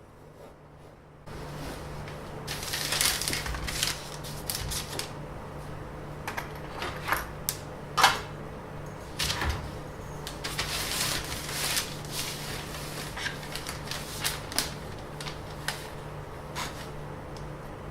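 Handling noises: irregular taps, clicks and short rustles from something being handled and set in place, over a steady low hum that comes in about a second in.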